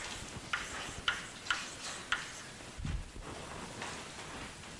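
Chalk writing on a blackboard: four short, sharp taps and strokes about half a second apart, then a soft low thump about three seconds in.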